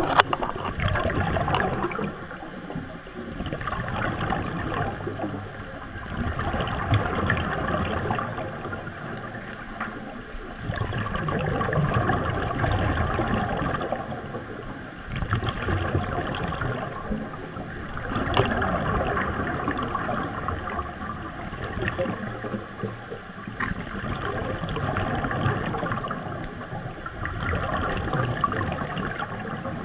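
Scuba regulator breathing heard underwater: exhaled air bubbling and gurgling out in swells every three to four seconds.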